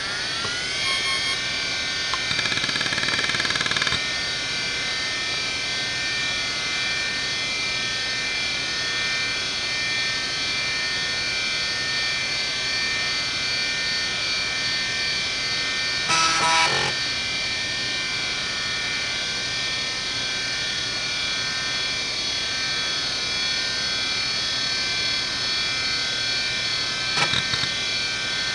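Conner Peripherals CFS850A 3.5-inch, 3600 RPM hard drive finishing its spin-up with a rising whine in the first second, then spinning with a steady high-pitched whine. There is a louder stretch about two to four seconds in, a short burst of head-seek noise about sixteen seconds in, and a few clicks near the end.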